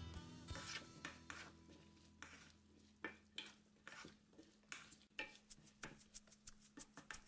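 A wooden spoon stirring chopped okra, diced tomatoes and onion in a nonstick frying pan: faint irregular clicks and scrapes of the spoon against the pan and vegetables.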